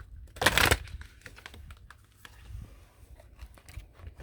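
Oracle cards being shuffled and handled: one loud papery swish about half a second in, then light clicks and taps of the cards.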